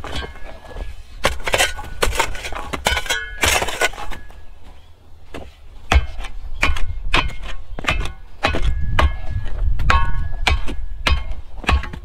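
Dirt and stones being packed into the hole around a wooden post with a long tamping bar: an irregular run of thuds and stony clinks, sometimes several a second.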